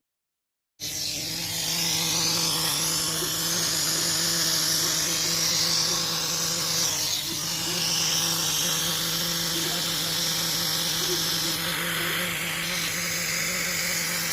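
Refrigerator compressor running as an air pump: a steady electric hum under a loud, high hiss. It starts suddenly about a second in and cuts off abruptly at the end.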